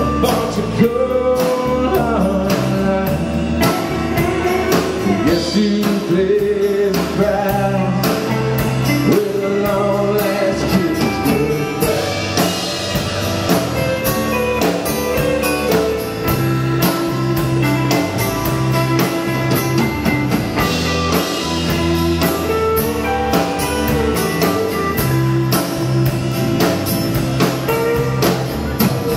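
Live country-rock band playing: drum kit, bass, electric and acoustic guitars together at a steady beat.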